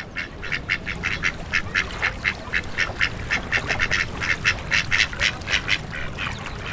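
A flock of ducks quacking in a rapid, continuous string of short calls, about four or five a second.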